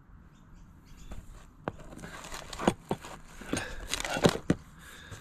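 A folding knife cutting along a cardboard box: scratchy scraping with several sharp clicks and taps as the blade and box are handled, starting about a second and a half in.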